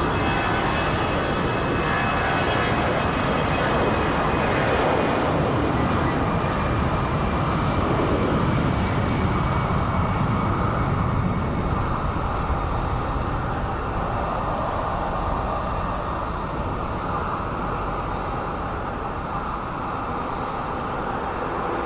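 Airliner engines running steadily with a dense rumble and hiss. A thin, high whine sits over it at first and fades away about halfway through.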